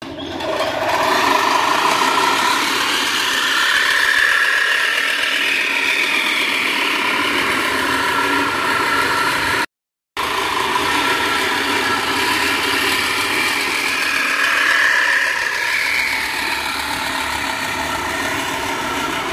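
Manual push reel lawn mower cutting grass, its spinning cylinder blades giving a continuous whirr that drifts up and down in pitch. The sound drops out completely for a split second about ten seconds in, then carries on.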